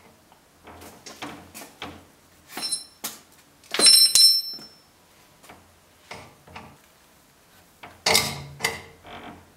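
Scattered knocks and clatters, irregularly spaced. Two sharp metallic clinks ring briefly a few seconds in and are the loudest. Another clatter follows near the end.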